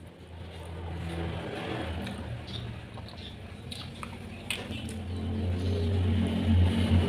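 Wet biting and chewing of sauce-coated fried chicken eaten by hand, with small sticky clicks. A low engine rumble builds over the second half and becomes the loudest sound.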